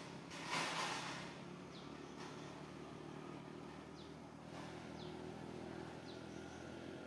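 Brief rustle of leaves and twigs about half a second in as a baby macaque moves through a bush, over a steady low hum, with short high falling chirps from a bird every second or so.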